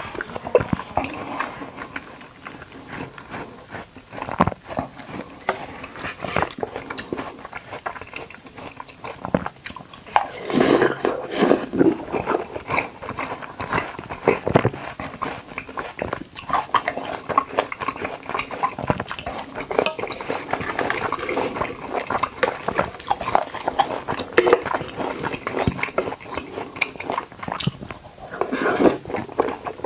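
Close-miked eating sounds: irregular wet chewing and biting of watermelon jelly, with occasional clicks of cutlery against a dish, busiest about ten seconds in and again near the end.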